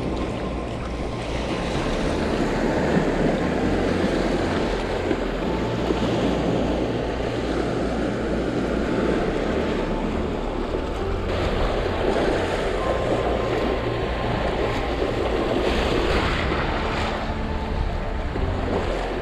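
Sea surf washing in over a rocky shore in the shallows, swelling and easing as the waves come in, with wind buffeting the microphone.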